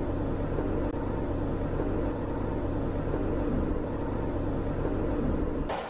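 Passenger train running, heard inside the carriage: a steady low rumble of wheels and running gear, which drops away just before the end.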